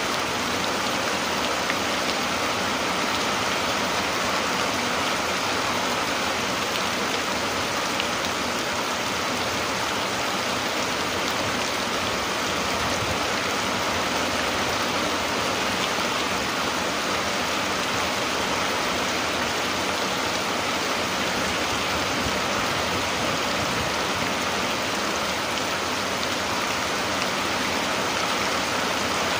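Rain falling steadily, an even, unbroken hiss of drops.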